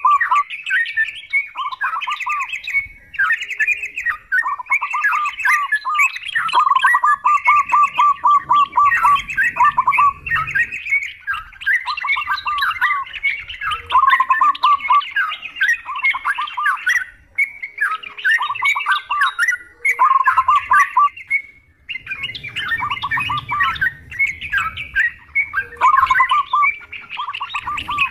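Yellow-vented bulbuls singing a loud, bubbly chatter of quick warbled phrases, one after another with a few brief pauses, several birds overlapping.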